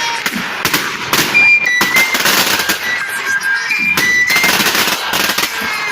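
Firecrackers going off in a rapid, irregular string of sharp cracks, with music and short high held notes underneath.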